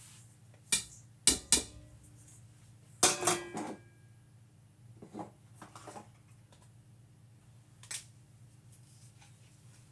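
Kitchen utensils and bowls knocking and clinking, a dozen or so separate sharp clinks, some with a short ring, loudest in the first four seconds, then a few lighter taps.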